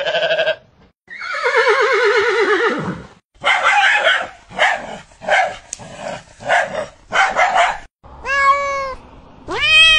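A girl imitating animal calls with her voice: first a long wavering call that falls in pitch, then a run of about seven short, rough calls, and near the end two clear drawn-out calls, the last one rising in pitch.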